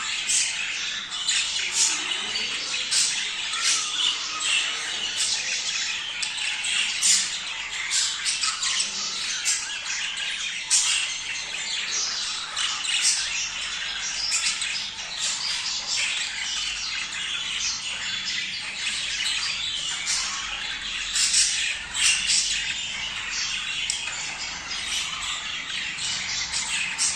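A flock of budgerigars chattering and squawking nonstop in dense, overlapping chirps, the breeding-season flock chatter played to stimulate budgies to mate.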